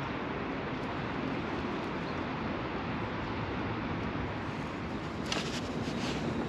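Steady outdoor background noise, an even hiss and rumble, with a few faint short clicks about five seconds in.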